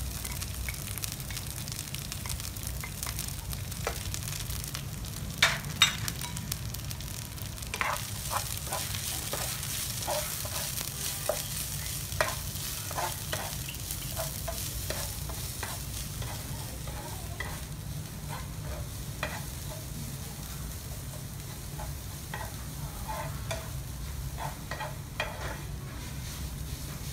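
Herb paste sizzling as it fries in a nonstick wok, over a low steady hum. A wooden spoon clicks and scrapes against the pan as it stirs, with two sharp knocks about five to six seconds in.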